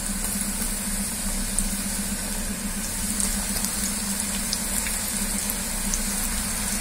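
Pieces of wheat-flour and Malabar spinach dough deep-frying in hot coconut oil: a steady sizzle with a few faint ticks as pieces drop in, over a low steady hum.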